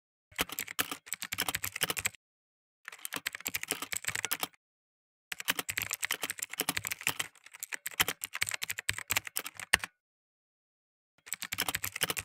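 Computer keyboard typing sound effect: rapid key clicks in four runs, with dead-silent gaps between them.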